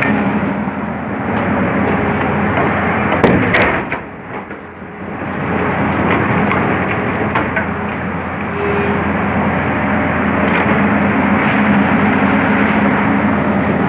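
Heavy unloading machine running steadily with a low engine hum as its hydraulic grab bucket digs crushed stone out of an open railway wagon. Two sharp bangs a little over three seconds in, after which the machine noise dips briefly before building again.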